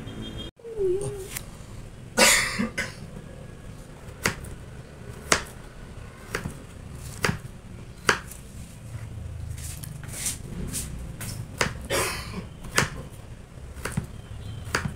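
Kitchen knife cutting a raw potato into strips on a wooden cutting board, each cut a sharp tap on the board about once a second.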